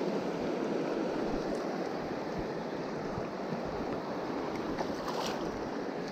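Shallow river current rushing steadily over stones, an even, constant water noise. A few faint clicks come about five seconds in.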